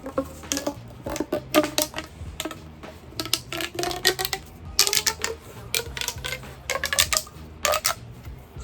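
Pop tube fidget toys being stretched and squashed: quick runs of clicks and snaps from the ribbed plastic, some with short pitched tones that rise.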